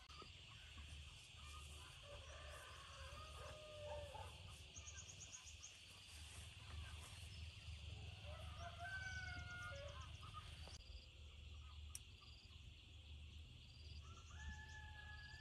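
Distant roosters crowing several times, faint, over a steady high hiss.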